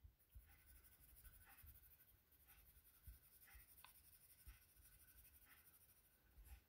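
Faint scratching of a felt-tip pen colouring on a paper strip, in short, irregular strokes.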